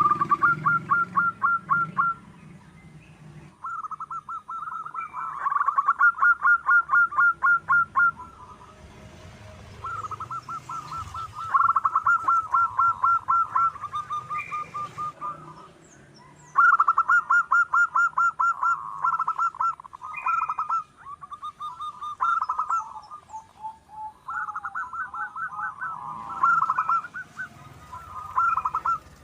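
Zebra dove (perkutut) calling: repeated bouts of fast staccato cooing notes, each bout a few seconds long with short pauses between. Faint high chirps of other small birds sound in the background.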